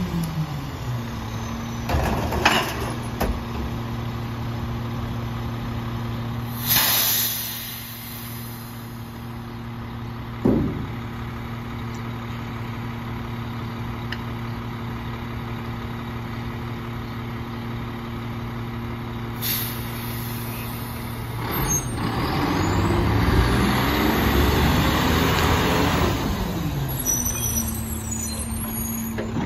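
Mack LEU garbage truck's engine idling steadily, with short air brake hisses about a quarter and two thirds of the way in and a few knocks. Near the end the engine speeds up and pitch rises and falls as the truck pulls away.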